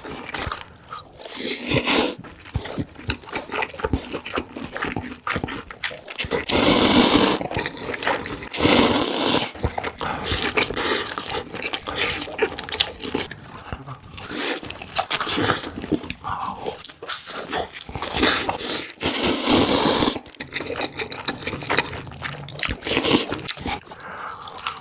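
Close-miked eating sounds: chewing and biting food, with many small wet clicks and several louder noisy bursts about a second long.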